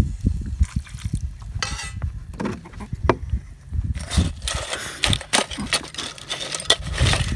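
Metal spoon stirring and knocking pieces of burnt seashell around a steel pot, a steady string of sharp clinks and scrapes, as the shells are worked with water into a lime paste. A low rumble lies under it throughout.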